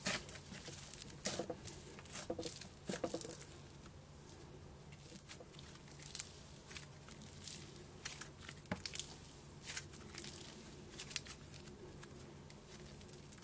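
Hands squishing, folding and stretching thick pink slime, making irregular sticky clicks and crackling pops, densest in the first few seconds and sparser after.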